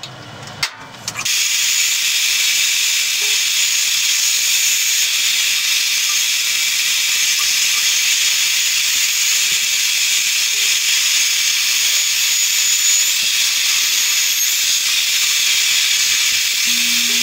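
Drill press boring a hole through steel square tubing: a loud, steady, high hiss of the bit cutting that starts about a second in, with a low steady hum joining near the end.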